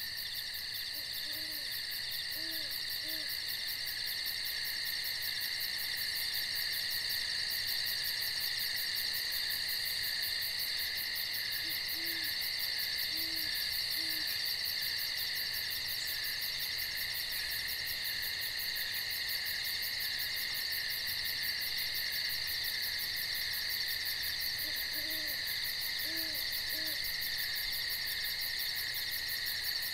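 A steady high chorus of night insects trilling, with an owl giving short low hoots in groups of three, three times roughly ten to twelve seconds apart.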